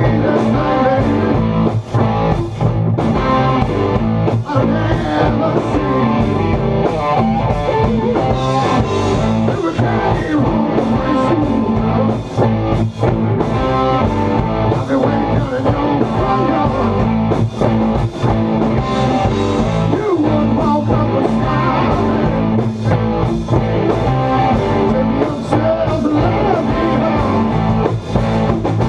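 Live blues-rock band playing: electric guitars over bass guitar and drums.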